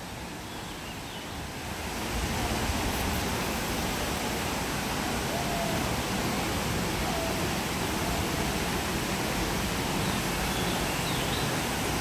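Steady rushing of falling and flowing water from the waterfall and river below, swelling louder about two seconds in, with a few faint bird chirps over it.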